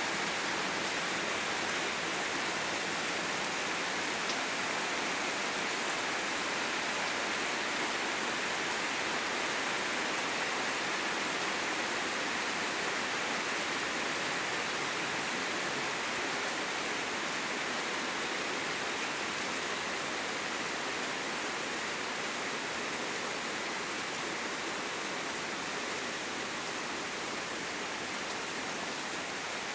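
Rain falling steadily, a continuous even hiss with no let-up.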